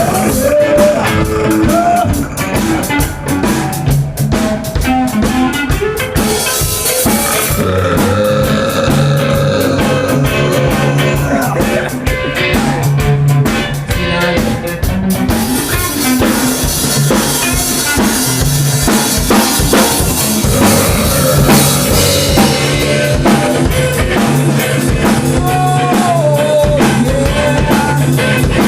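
Band jam music: a drum kit keeping a steady beat under a repeating bass line and guitar.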